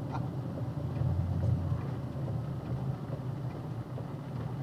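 Box truck engine running with a steady low hum, heard from inside the cab as the truck picks up speed from a crawl.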